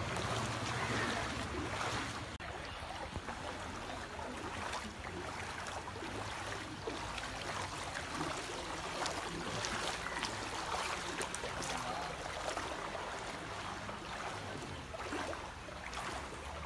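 Floodwater sloshing and splashing around legs as someone wades through it: a steady watery wash with scattered small splashes.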